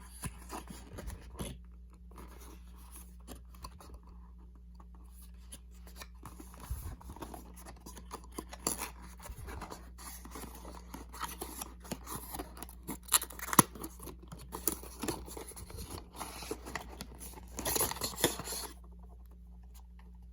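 Perfume box packaging being handled and opened: irregular clicks, scrapes and crinkling of cardboard and wrapping, busiest in the second half, with a longer burst of rustling near the end.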